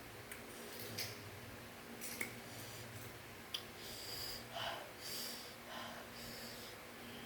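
A person sniffing and breathing hard in several hissing breaths, with a few small clicks, while eating a very hot chili-seasoned snack. A steady low hum sits underneath.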